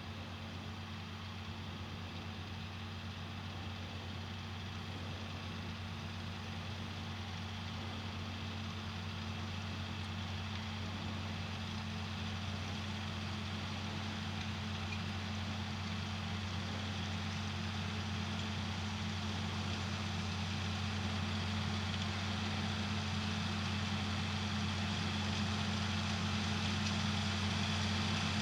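A John Deere tractor's diesel engine running steadily under field work, its drone growing slowly louder as it draws nearer.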